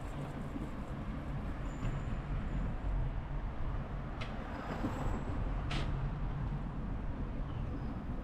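Steady low rumble of vehicle and road noise, with two short sharp clicks about four and six seconds in.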